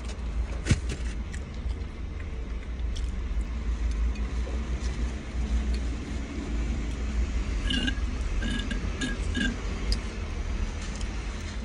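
Steady low vehicle rumble heard from inside a car cabin. A sharp click comes near the start, and a few short, faint high-pitched sounds come about eight to nine seconds in.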